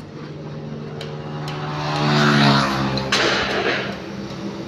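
A truck engine running, revved up about two seconds in and then easing back.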